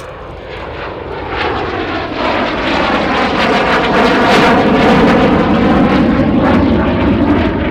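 Folland Gnat T.1 jet trainer's Bristol Siddeley Orpheus turbojet passing close in a display flypast, swelling to its loudest about four to five seconds in with a sweeping tone as it goes by, then easing slightly.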